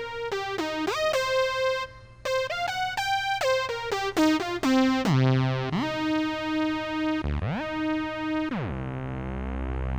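Analog synthesizer playing a line of single notes with portamento: each note slides in pitch to the next instead of jumping. The slides grow long in the second half, with a long drop to a low note near the end.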